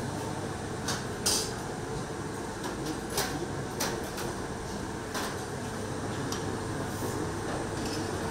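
Plates and cutlery clinking on a stainless-steel cafeteria serving counter: a handful of sharp, separate clinks over a steady background hum.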